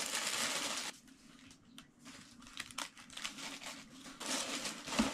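Tissue paper in a shoebox rustling and crinkling as it is pulled open and crumpled. It is loudest for about the first second and again near the end, with quieter crackles between and a short thump just before the end.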